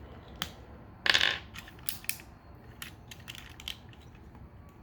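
Plastic clicks and clacks of a Transformers action figure being handled and an accessory pulled off, with a brief louder scrape about a second in and scattered single clicks after it.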